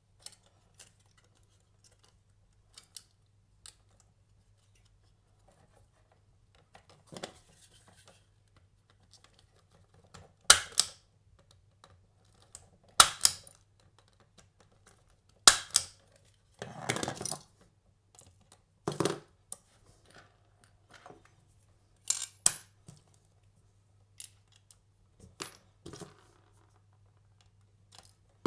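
Punch-down tool seating Cat6 wires into the slots of an RJ45 keystone module: a sharp snap every two to three seconds from about ten seconds in, seven or so in all, with quieter clicks and rustles of the wires being handled.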